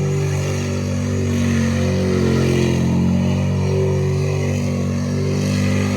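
A vehicle engine running steadily at a fairly even speed, its pitch wavering slightly.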